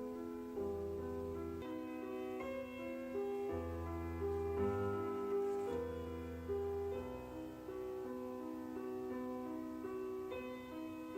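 Instrumental keyboard music: held chords and melody notes changing about once a second over a bass line.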